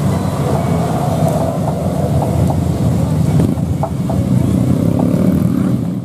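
Coach bus engine rumbling steadily as the bus drives past, mixed with the noise of motorcycles and other traffic on the road.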